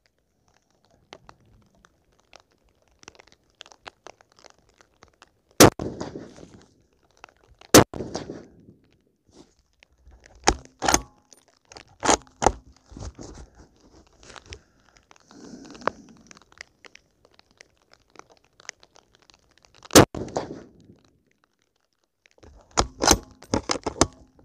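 Thompson/Center Compass .308 bolt-action rifle firing several spaced shots, each a sharp report with a short tail. Between the shots come sharp clicks and clacks as the bolt is worked.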